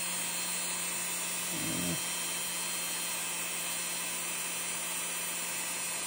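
Dremel rotary tool running steadily at high speed, a thin high whine over a steady hum.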